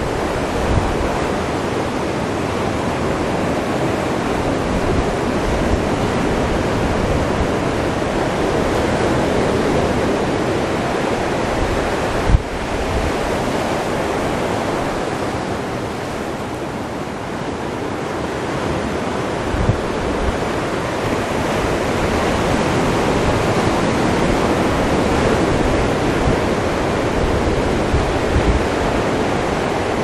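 Surf breaking and washing up a sandy beach, mixed with wind buffeting the camera's microphone: a steady rushing noise with gusty low rumbles. One brief knock about twelve seconds in.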